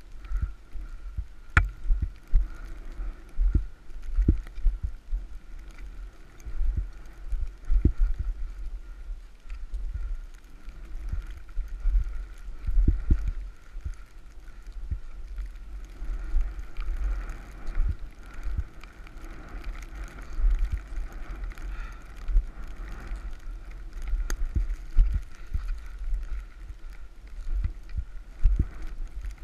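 Snowboard riding through deep powder, picked up by a camera on the rider: a muffled, uneven rumble of board and wind with frequent irregular thumps and knocks as it rides over bumps in the snow.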